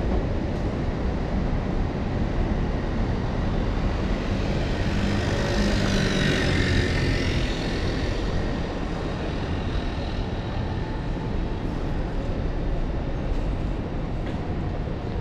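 Steady low city traffic rumble, with one vehicle passing by about halfway through, its sound swelling and then fading.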